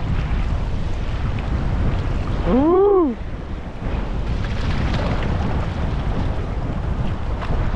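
Wind buffeting the microphone as a steady low rumble. About two and a half seconds in, a single short pitched call rises and then falls.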